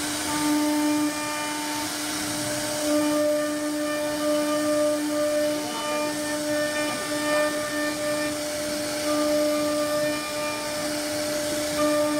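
CNC router spindle running with a steady whine as its bit carves relief patterns into a wooden door panel, over a hiss of cutting. The loudness swells and eases every second or two as the cut changes.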